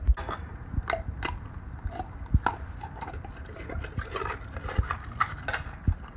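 Weimaraner–Labrador mix dog eating a raw meal from a stainless steel bowl: wet licking and chewing, with scattered clicks and knocks of teeth and food against the metal bowl as it breaks open a raw chicken egg.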